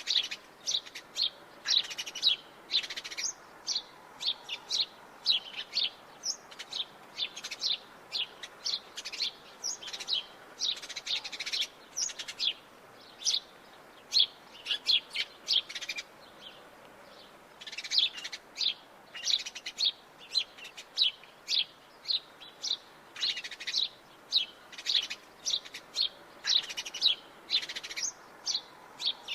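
House sparrows chirping: a rapid run of short, sharp chirps, several a second, with a pause of about two seconds around the middle.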